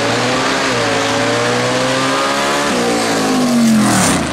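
Engine of a motorized fire-drill racing rig running flat out as it carries the team down the track. The pitch holds high, then falls as the rig slows to a stop, ending in a brief skid.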